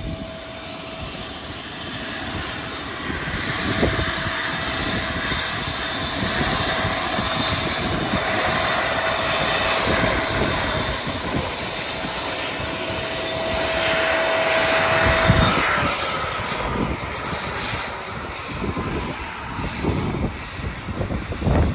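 Helicopter with its turbine engine running on the ground: a steady whine over rotor and engine rumble, with a high whine that slides down in pitch over the last few seconds.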